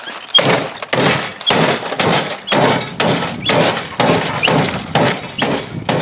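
A homemade punching arm repeatedly hammering the cracked glass door of a microwave, steady heavy thunks about two a second; the glass screen holds.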